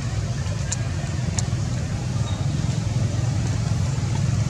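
Steady low rumble of outdoor background noise, with two short high chirps in the first second and a half.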